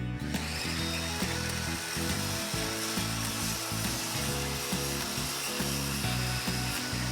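Motor-saw sound effect, a continuous sawing buzz without pauses, as a toy lumberjack cuts down a tree.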